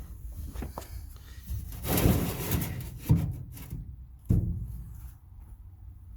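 A shim being fitted into place: a scraping, rubbing slide for about a second, then two sharp knocks about a second apart.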